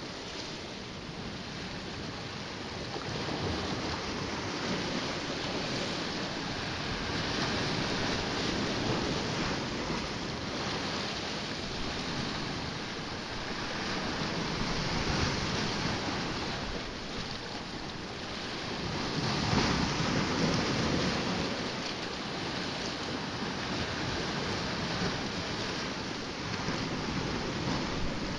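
Sea waves washing against a rocky shore: a steady rushing that swells and eases every few seconds, loudest about two-thirds of the way through.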